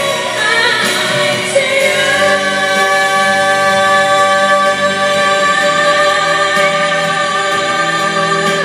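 Two female singers performing a pop duet into microphones, settling about two seconds in on a long held note that lasts almost to the end.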